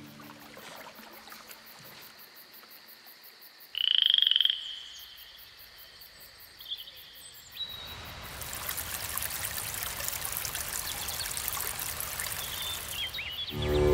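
A frog gives one loud, short call about four seconds in, a quick rattle of pulses, followed a little later by a few faint chirps. From about eight seconds in, a rocky stream rushes steadily.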